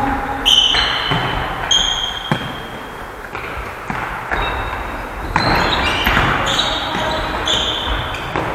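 Indoor futsal play in a reverberant sports hall: several short, high squeaks of indoor shoes on the hall floor, with the sharp knocks of the ball being kicked and bouncing.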